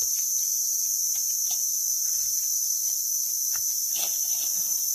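Steady, high-pitched chorus of insects such as crickets or cicadas, the loudest thing throughout. Under it are a few soft rustles and light scrapes from hands cleaning soil off a picked mushroom's stem in dry leaf litter.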